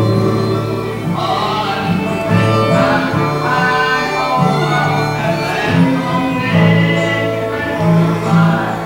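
Country music with singing over guitar and fiddle, a steady bass line moving note to note.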